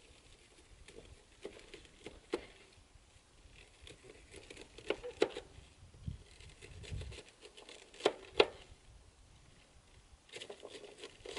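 Faint rustling with scattered light knocks and taps from food preparation at a camp-stove table.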